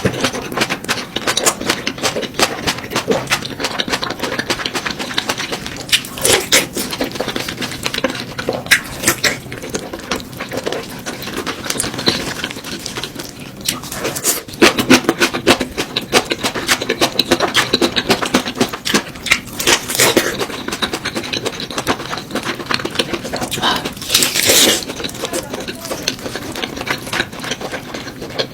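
Someone eating close to the microphone: a dense, continuous run of crackly chewing and mouth clicks, with a few louder bursts.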